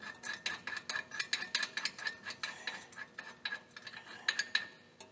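Ratchet wrench clicking rapidly as a 19 mm bolt is run in through the knuckle and spacer plate into a brake caliper. The clicking stops shortly before the end.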